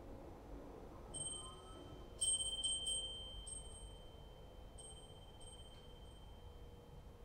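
Small chime ringing the same high, clear note again and again. It starts faintly, peaks in a quick run of strikes about two seconds in, then a few spaced strikes ring on and fade.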